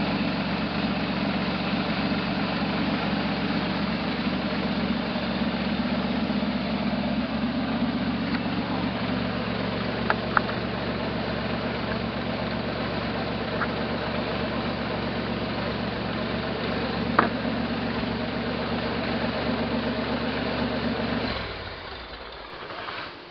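Buick V6 engine of a 1968 Jeepster Commando idling steadily while misfiring on one cylinder, which the owner traces to a back cylinder, with a few light clicks. The engine shuts off near the end.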